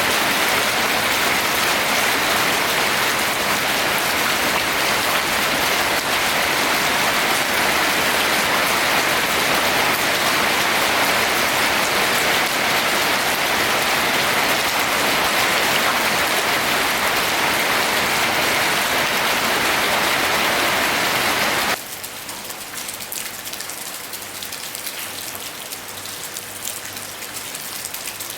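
Rain falling on a roof, a dense steady hiss of drops. About 22 seconds in it drops abruptly to quieter, sparser rain with single drops distinct.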